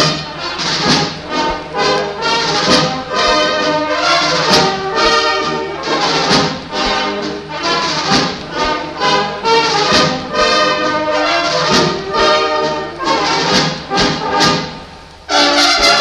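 Military brass fanfare playing a march, trumpets and trombones to the fore. Near the end the music briefly dies down, then the full band comes back in loud.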